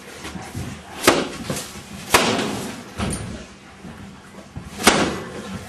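Four sharp bangs about a second apart, the third one softer, each with a short echo.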